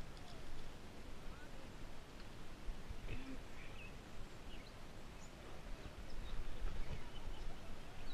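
Steady rush of a flowing trout stream, with a few faint bird chirps about three seconds in.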